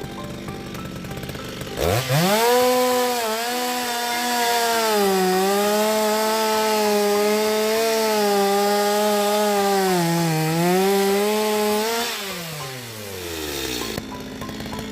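Chainsaw engine revving up quickly and running at high speed, its pitch sagging twice as if under load in a cut, then winding down and dying away near the end.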